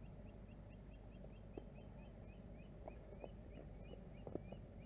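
A faint, even run of short high chirps from a calling animal, about five a second, with a few soft thuds near the end.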